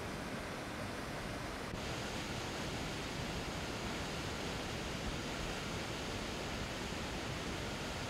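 Waterfall and churning river water rushing, a steady, even noise with a faint click just under two seconds in.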